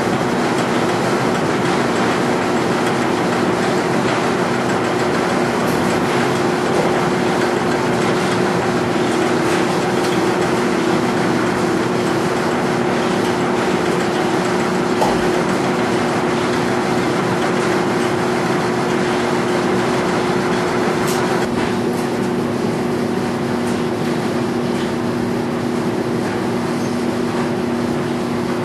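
Large Speed Queen 125-lb commercial washer-extractor spinning at high speed in its final extract: a steady, loud mechanical run with a low two-note hum under a broad whir. Dryers in the shop add to the noise.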